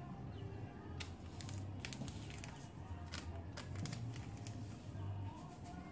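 Small paper sachet of vanilla sugar being handled and torn open: a run of sharp crinkling and crackling clicks from about a second in, over a faint steady low hum.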